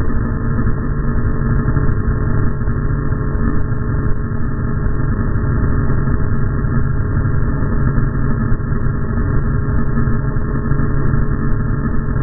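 Radio-controlled model airplane in flight, its motor and propeller running in a steady, unbroken drone.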